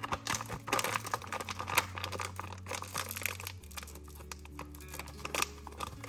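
Foil-lined bag of ground coffee crinkling and crackling in the hands as it is handled and opened, with a loudest crackle about two seconds in. Soft background music with steady bass notes underneath.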